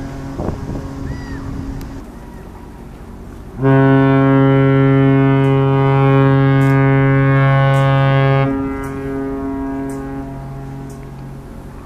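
The MS Island Princess cruise ship's foghorn sounds one long, low-pitched blast of about five seconds, starting about three and a half seconds in, as a fog signal. When it cuts off, its echo lingers and fades across the water.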